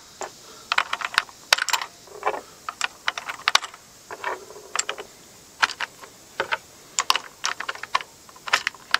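5.56/.223 cartridges pressed one by one into a fixed AR-15 magazine through its open loading door: a run of sharp, irregular metallic clicks, often in quick pairs, as each round snaps into place.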